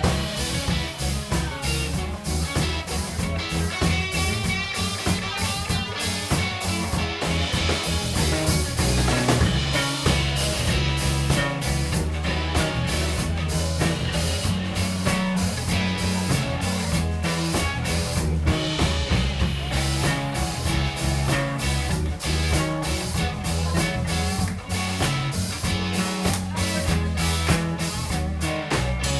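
Rock band playing live with electric guitar, heavy bass and a drum kit keeping a steady beat, in a loud instrumental passage that breaks off abruptly at the close of the song.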